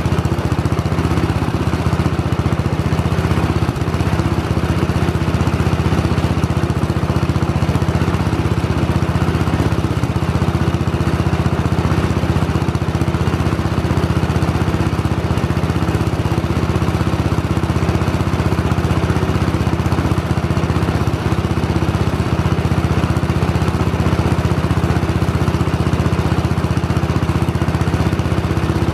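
Engine of a 1970 Sears SS14 garden tractor idling steadily and evenly.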